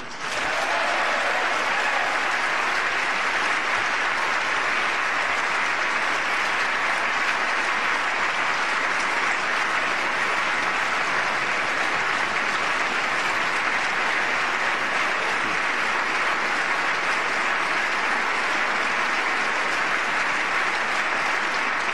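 A large audience applauding, a long, steady ovation that swells in right after a line of a speech.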